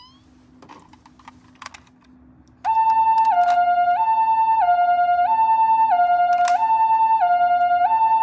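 A few light clicks, then about two and a half seconds in a two-tone ambulance siren starts. Its 'pi-po' hi-lo call steps between a higher and a lower pitch about every 0.6 seconds.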